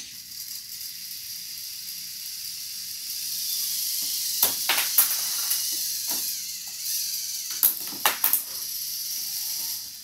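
VEX IQ robot's motors and plastic gear trains running with a steady high whirring hiss as it drives and tips up onto the low hanging bar. A few sharp plastic knocks and clatters come about four and a half to five seconds in, and again around eight seconds.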